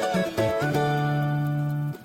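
Background music played on plucked-string instruments: a few quick notes, then a long held chord that stops just before the end.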